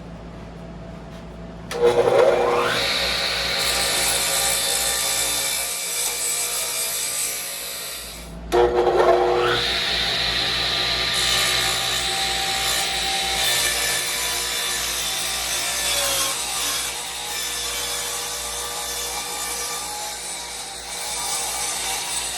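Electric saw cutting through sheet board. The motor whines up to speed about two seconds in and cuts steadily for around six seconds. It stops briefly, then spins up again and cuts on to the end.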